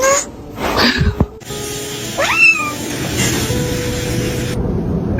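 A cat meows once about two seconds in, a single call that rises and then falls, with shorter sounds before it and a steady hiss after it.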